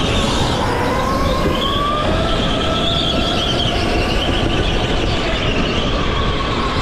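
Indoor rental go-kart running at speed through the turns, heard from the driver's seat: a loud, steady rush of noise with a whine that wavers up and down in pitch.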